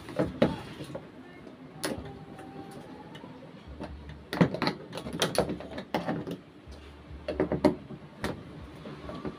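Hands working insulated wire through plastic junction boxes and PVC wiring channel on a wooden board: irregular clusters of knocks, clicks and scraping as the wire and plastic parts are pushed and pulled.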